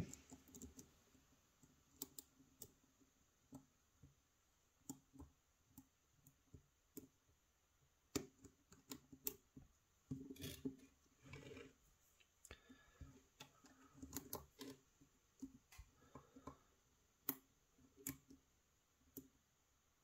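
Faint, irregular small clicks and taps of a hook pick tapping the tapered pin stacks of a brass euro-profile pin-tumbler cylinder held under tension.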